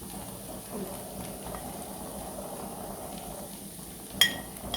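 Okra frying in a pan, a steady soft sizzle, with a single sharp metallic clink about four seconds in.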